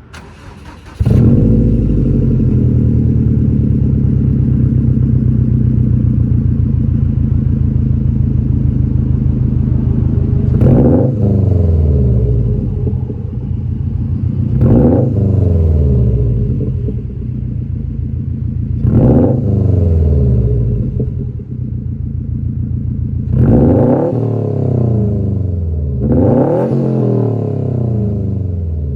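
Subaru WRX STI's turbocharged flat-four running through a Tomei Expreme Ti titanium catback exhaust, coming in loudly about a second in and then idling with five short throttle blips that rise and fall in pitch. Very loud.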